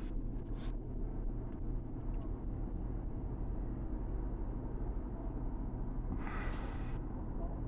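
Steady low rumble with a short hiss about six seconds in.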